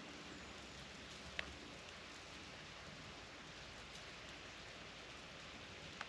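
Sleet falling steadily on snow, rock and trees, a soft even hiss, with one sharp tick of a drop about a second and a half in.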